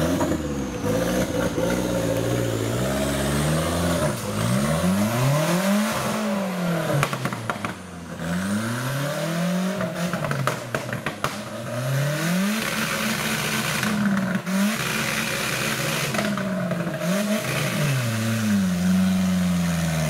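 Off-road 4x4 competition vehicle's engine revving hard and dropping back over and over as its tyres churn through deep mud. The revs climb and fall every couple of seconds, holding high for a few seconds past the middle.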